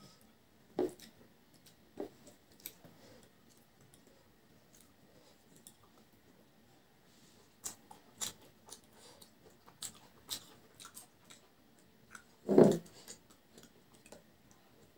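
Close-up eating sounds as rice and brinjal curry are eaten by hand: scattered wet mouth clicks and chewing, with one louder wet bite near the end.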